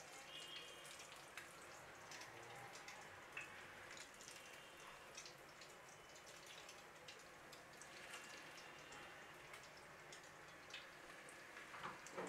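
Breaded potato patties shallow-frying in oil over a low flame: a faint, soft sizzle scattered with small pops and crackles. Near the end a slightly louder crackle comes as another patty is set into the oil.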